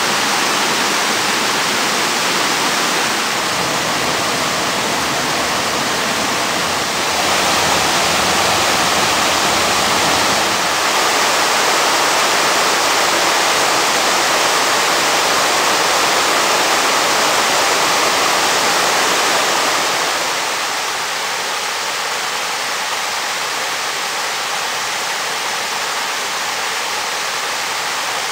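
Storm-swollen creek in full flow, muddy floodwater rushing over rock ledges and a rock waterfall. It is a steady, unbroken rush that gets louder about a quarter of the way in and eases off a little about two-thirds of the way through.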